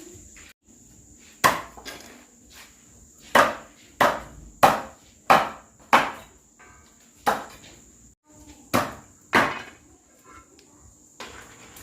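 Chopping: a blade strikes down onto wood about ten times at an uneven pace, a second or so apart. A steady high insect buzz runs behind it.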